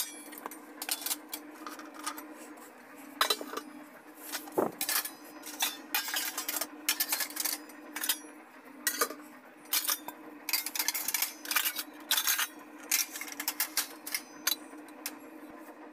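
Stainless steel dishes, bowls and lids clattering and clinking as they are handled and stacked in a plastic dish rack, a quick irregular run of knocks, over a steady low hum.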